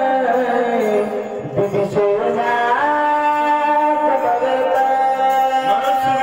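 A man singing a devotional recitation in long held notes that slide from one pitch to the next.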